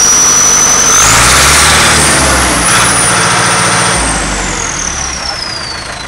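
Zetor 7245's turbocharged four-cylinder diesel, breathing through a stainless steel exhaust stack, is revved up about a second in and held, then let drop back toward idle after about four seconds. A high turbo whistle climbs as the engine revs, then falls slowly as the turbo spools down.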